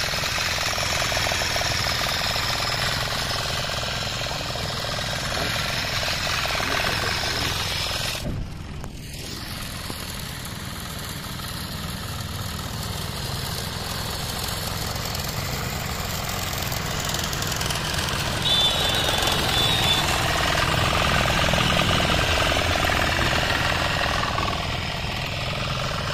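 The small engine of a self-propelled walk-behind wheat reaper runs steadily while the machine travels. The sound dips briefly about eight seconds in and is louder from about eighteen seconds to near the end.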